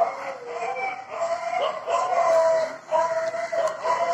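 Animal cries: a string of about six drawn-out calls, each held at a steady pitch for roughly half a second to a second, with short breaks between them.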